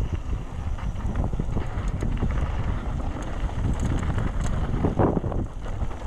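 Wind buffeting the action camera's microphone during a fast downhill mountain-bike run, with the Trek Session downhill bike's tyres rumbling over the ground and the bike rattling and knocking over bumps. There is a heavier thud about five seconds in.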